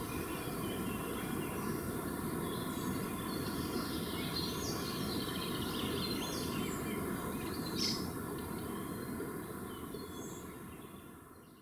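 Birds chirping in short calls over steady outdoor background noise, all fading out over the last couple of seconds.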